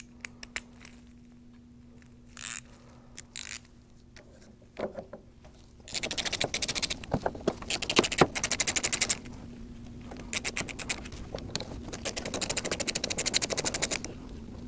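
Ratchet wrench clicking rapidly in two long runs, starting about six seconds in, as it turns out the four bolts that hold the displacement pump to a Graco E-10 proportioner. A few single tool clinks come before.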